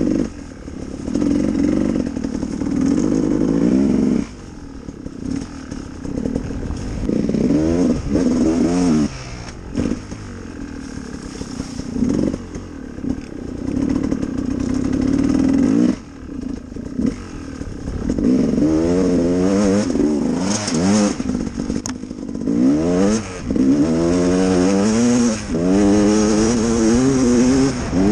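Gas Gas EC 300R two-stroke enduro motorcycle engine under way, revving up and easing off over and over. Its pitch climbs in repeated runs and drops back, with a few short throttle-off lulls, heard from the rider's helmet.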